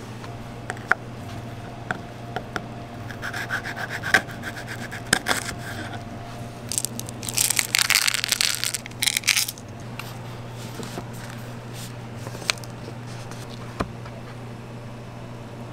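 Chocolate chips poured from a plastic tub, rattling into a clear plastic lid for a few seconds past the middle; this is the loudest sound. Around it are scattered light clicks and taps of food being handled, over a steady low hum.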